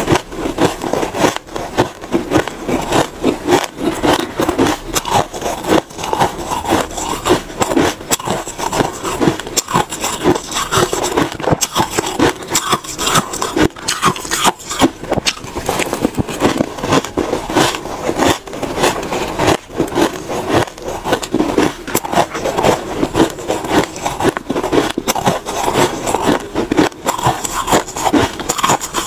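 Close-miked crunching of soft shaved ice being bitten and chewed, with a metal spoon scooping into the ice: a dense, continuous run of crisp crackles.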